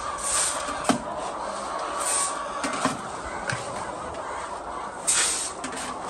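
A large flock of chickens clucking, with feed poured from a metal bucket into hanging tube feeders in three short rushes and a few metal clinks.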